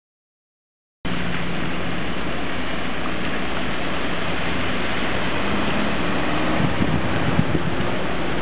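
Heavy rain pouring steadily during a thunderstorm, starting after about a second of silence, with a faint low steady hum underneath.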